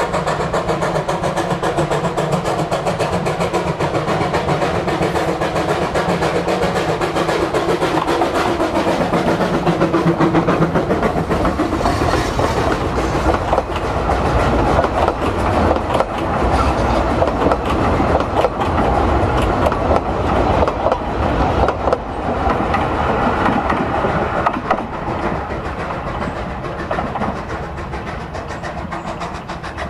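Baldwin 4-6-2 Pacific steam locomotive running past close by, its exhaust and running gear loudest around the middle. Then its coaches clatter over the rail joints, and the sound fades as the train draws away near the end.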